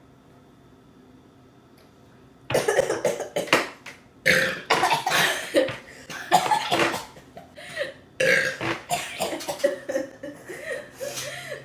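Loud, drawn-out belches come in a string of about four long bouts, starting about two and a half seconds in after a quiet start. They are gas from carbonated Sprite gulped down with bananas.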